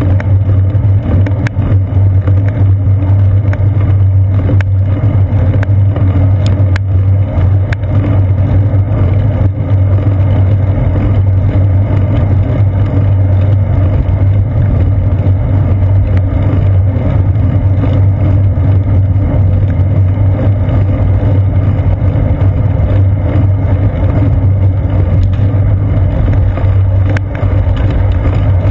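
Steady low drone and rumble of a bicycle riding along a paved path, heard through a seat-post-mounted GoPro Hero 2: tyre and road vibration carried into the camera, mixed with wind, with a few faint clicks.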